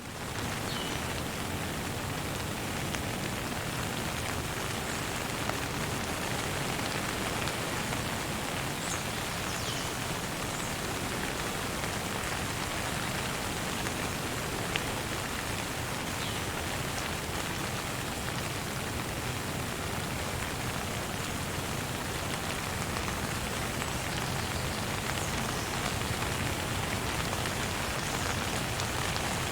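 Steady rain falling, an even hiss with two sharper drop ticks standing out.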